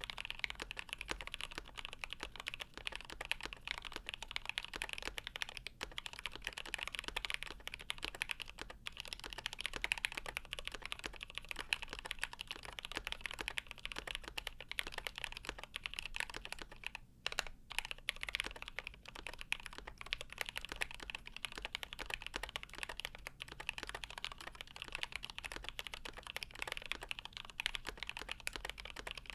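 Continuous fast typing on a GMMK Pro mechanical keyboard with lubed Milky Gateron Yellow linear switches on an aluminium plate, a dense stream of key clacks, with a brief pause a little past halfway.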